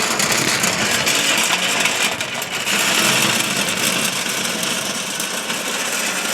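A small motor running steadily and loudly throughout, a hissing whir with a faint low hum under it.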